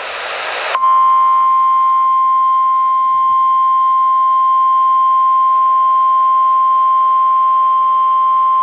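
A hiss rising for under a second, then a loud, steady single-pitched emergency alert attention tone near 1 kHz. It is the alarm that announces a broadcast severe weather warning.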